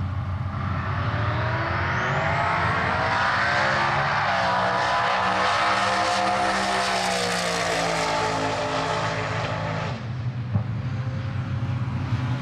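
A twin-turbo V8 in a drag-race Valiant launching and accelerating hard down the strip. A high whine climbs over the first two seconds, and the engine note rises, then drops away as the car passes. About ten seconds in, the sound changes abruptly to a steadier low rumble.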